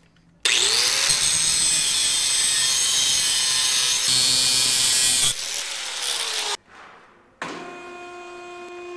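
Angle grinder with a cut-off wheel trimming a steel axle tab held in a vise: the motor spins up about half a second in, cuts for about five seconds, then winds down. Background music starts near the end.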